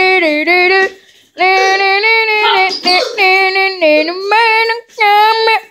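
A child singing loud, wordless held notes in a high voice, in a few phrases broken by short pauses.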